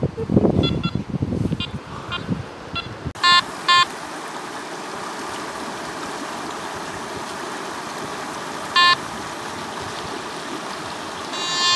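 Metal detector giving short electronic beeps over dug ground, two in quick succession about three seconds in and another near nine seconds, with a wavering target tone starting near the end. Before the first beeps there are rough handling and scraping noises, and after them a steady rushing hiss.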